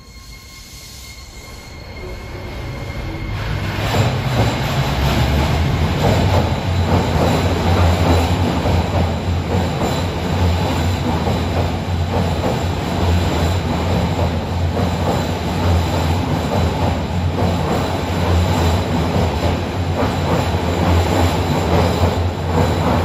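Toei 12-600 series linear-motor subway train pulling out of the station. Its running noise builds over the first four seconds, then carries on as a steady, loud rumble while the cars pass.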